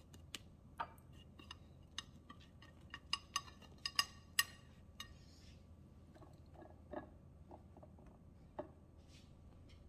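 Light clicks and crackles of a spring roll being rolled up by hand on a ceramic plate, the stiff wrapper crinkling under the fingers: a quick run of sharp ticks that peaks about four seconds in, then a few soft taps.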